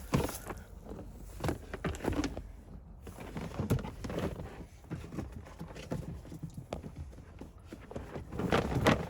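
Irregular knocks, taps and scraping from a stiff molded floor liner being handled and shifted around inside a pickup truck's cab, with a louder burst of handling noise near the end.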